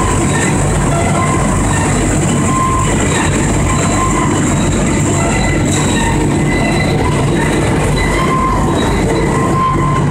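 Machinery of a biomass sawdust pellet production line running together: conveyors, elevators and the pellet mill's electric motors make a loud, steady industrial din, with short high tones that come and go.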